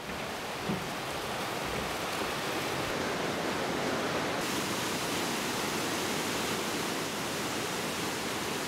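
Steady rush of a white-water mountain river over rocks, with the hiss turning brighter about halfway through.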